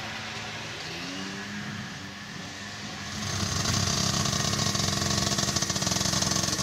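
Kartcross buggy engine revving, its pitch climbing about a second in, then running louder and steadier from about three seconds in.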